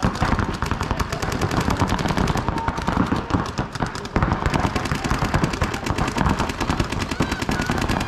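Several paintball markers firing rapid streams of shots at once, a dense overlapping popping, with a brief lull about four seconds in before the firing picks up again.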